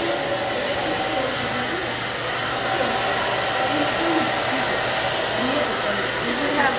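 Handheld hair dryer running steadily, blowing air through wet hair.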